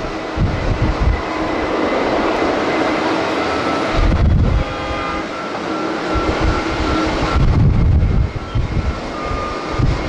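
Jet engines of a Boeing 737-800 running on the runway: a steady roar with a thin whine, while strong gusts of wind buffet the microphone.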